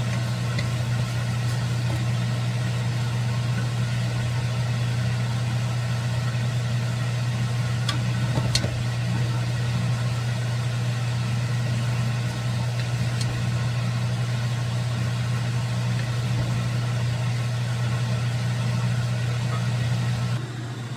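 Steady low mechanical hum, like a motor or engine running at an even speed, with a faint click or two partway through.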